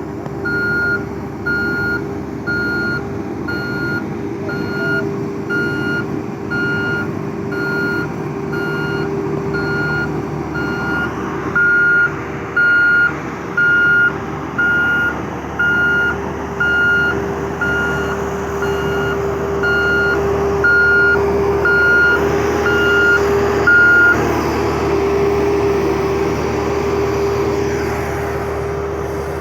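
Reversing alarm of a construction vehicle beeping about once a second over the steady hum of its running engine. The beeping stops about 24 seconds in while the engine keeps running.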